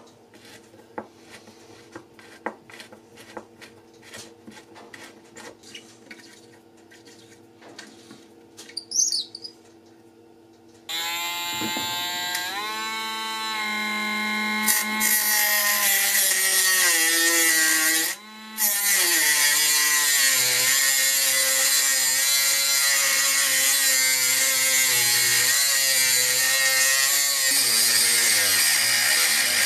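Faint clicks and scrapes of a screwdriver working at a rusted screw in the saw's wooden handle, then about eleven seconds in a cordless rotary tool with a thin cut-off disc starts up and runs at high speed, its whine sagging and rising as the disc grinds into the rusted screw head. It drops out for a moment a little past the middle and starts again.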